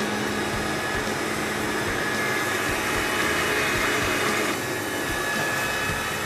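Countertop blender motor running steadily, blending a liquid salad dressing, with a constant whine. The sound gets slightly softer about four and a half seconds in.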